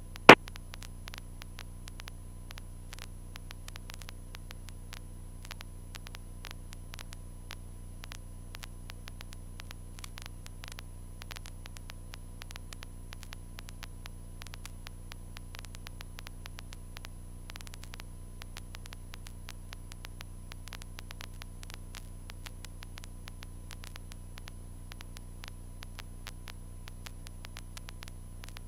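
Steady electrical hum and static from an aircraft intercom recording feed, with a constant light crackle of tiny clicks and one loud sharp click just after the start.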